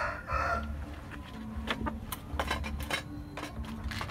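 A rooster crowing, the end of the crow in the first half second, followed by a string of sharp clicks and taps.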